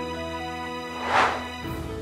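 Light background music with steady notes, and a short whoosh that swells and fades about a second in.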